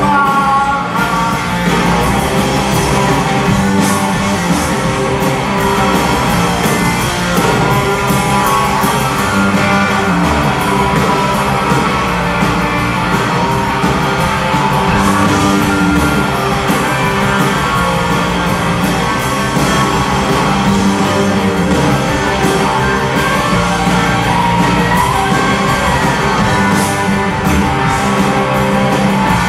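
Live rock band playing loud and steady: electric guitars and a drum kit.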